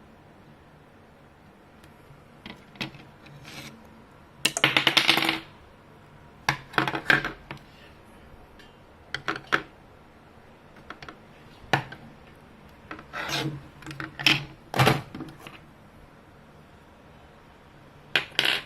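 Irregular handling noises: hard little clicks, rubs and scrapes of tools and a circuit board being worked on at a bench. There is a longer stretch of scraping about five seconds in, and shorter bursts with quiet gaps between them.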